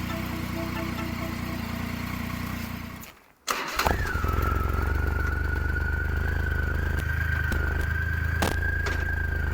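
Motorcycle engine running steadily. About three seconds in, it fades to near silence for half a second. It then comes back abruptly with a steady high whine over the engine.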